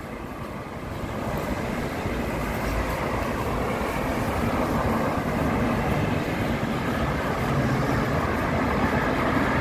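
Road traffic on a busy highway: a steady rumble of passing vehicles that grows louder over the first few seconds and then holds.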